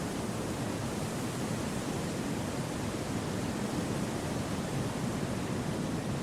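Steady wind through a forest: an even rushing hiss with no gusts, rises or other sounds.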